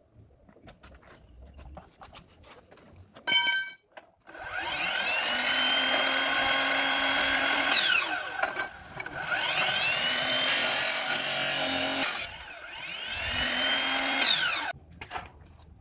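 A short electronic beep, then an electric motor-driven machine switched on in three bursts: each time it whines up to speed, runs steadily and winds down.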